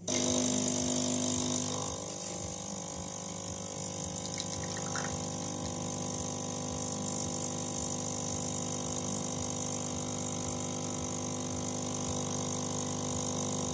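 Saeco PicoBaristo super-automatic espresso machine's vibratory pump cutting in suddenly and running with a steady hum while it pushes water through the coffee and espresso pours from the spout into the glass. It is a little louder for the first two seconds, then runs evenly.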